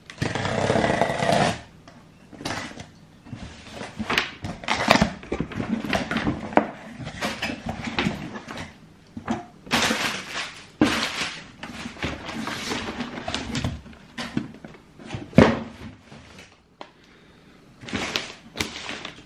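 Cardboard shoebox being handled: a loud rustle at the start, then an irregular run of knocks, scrapes and taps of the box and lid, the sharpest knock about three-quarters of the way through.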